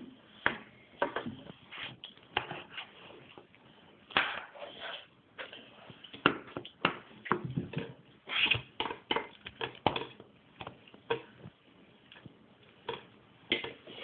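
Noodles being eaten: an uneven run of small clicks and smacks, with a few longer noisy stretches.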